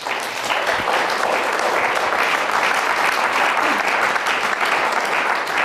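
Studio audience and panel guests applauding: dense, steady clapping that starts suddenly and keeps going.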